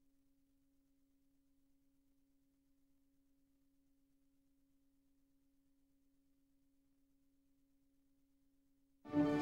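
Near silence with one faint steady tone, then music starts suddenly near the end.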